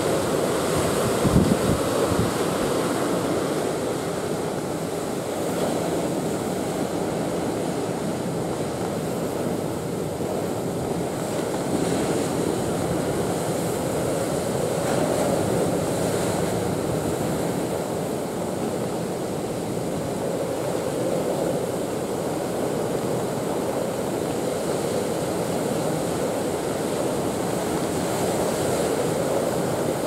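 Heavy storm surf driven by a typhoon, breaking continuously in strong wind, in a steady, unbroken wash of noise. A gust buffets the microphone about a second in.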